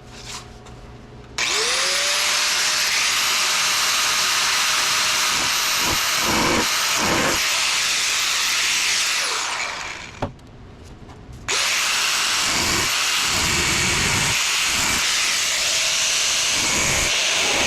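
High-speed cutoff wheel spinning up with a rising whine and cutting through the door's outer sheet-metal skin, with bursts of grinding as it bites. It winds down and stops just before the middle, then starts again about a second and a half later and keeps cutting.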